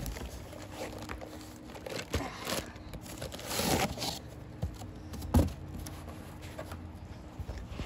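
Packaging being handled: plastic bags around ceiling fan parts crinkling and a cardboard box shifting, in short scattered rustles, with one sharp knock about two-thirds of the way through.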